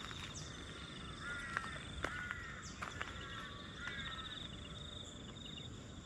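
Bush ambience: a steady, rapidly pulsing high insect trill throughout, with three short bursts of harsh bird calls between about one and four seconds in, and a few sharp clicks.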